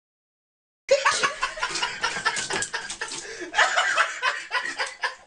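Dead silence, then about a second in, sound cuts in suddenly: people laughing and chuckling in short bursts.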